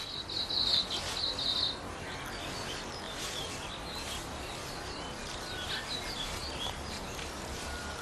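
Forest ambience: a high chirping trill for about the first second and a half, then scattered fainter chirps over a steady background hiss.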